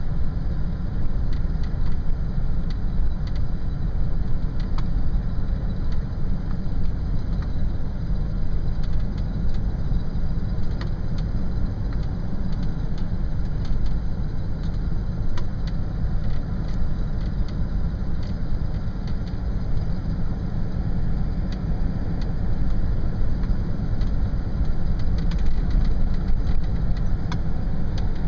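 Steady low rumble of a car's engine and road noise heard from inside its cabin as it drives slowly.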